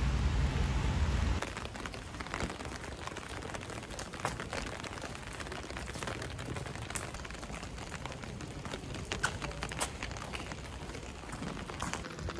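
Rain on a clear plastic umbrella, with a loud low rumble for about the first second and a half. After a sudden drop it turns to a softer hiss of a wet street with scattered, irregular taps and drips.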